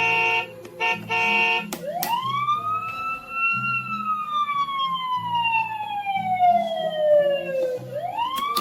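Electronic siren sound effect from a toddler's firefighter busy board speaker: two short beeps, then one long wail that rises quickly, falls slowly over about six seconds, and begins to rise again near the end.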